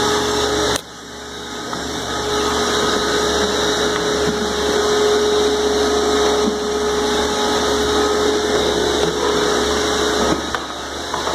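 Wet vacuums running steadily, sucking up floodwater: a rushing drone with a steady hum through it. It drops off abruptly about a second in and builds back up over the next few seconds.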